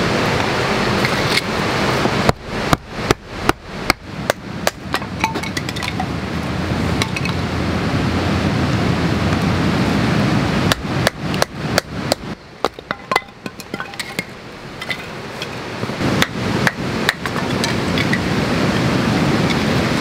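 Firewood being split into kindling with a knife: three runs of sharp wooden knocks, about three a second, over a steady rushing background noise.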